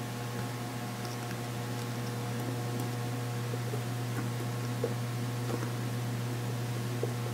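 Steady machine hum with a few faint light ticks from metal tweezers touching the chip on the circuit board.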